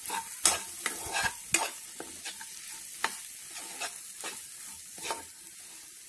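Slotted steel spoon scraping and knocking against a kadai as egg masala is stirred and fried in freshly added oil, with a steady sizzle underneath. The scrapes come irregularly, thicker and louder in the first couple of seconds.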